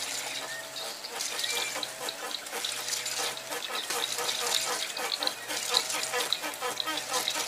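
Water sloshing and splashing while a hooked fish is reeled in on a spinning rod, with the fine, rapid ticking of the reel and short chirping calls in the background.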